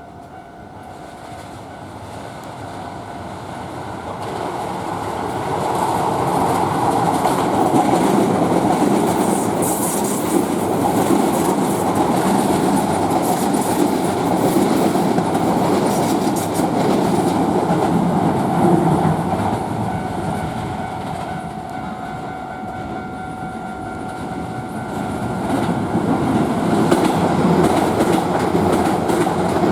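Keisei 3000- and 3050-series electric commuter trains passing over a level crossing, the wheels clattering over the rail joints, while the crossing warning bell sounds. The train noise builds over the first few seconds, eases a little past the middle, and swells again near the end.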